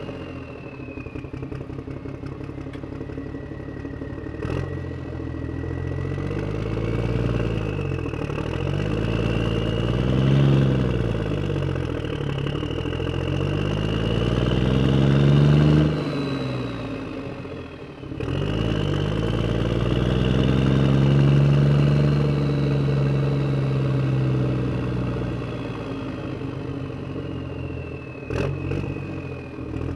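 Truck engine sound running and revving up and down several times, dipping briefly about halfway, with a thin high whine that rises and falls along with it. The toy truck is pulled by a string, so this engine sound is laid over the picture rather than made by the toy.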